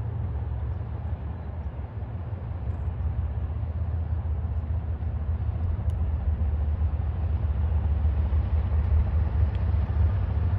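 Low, steady rumble of approaching BNSF diesel freight locomotives, growing gradually louder.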